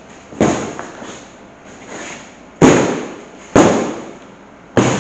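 A heavy cardboard box being ripped open by force: four sudden tearing rips, each fading quickly, the two loudest a second apart past the middle.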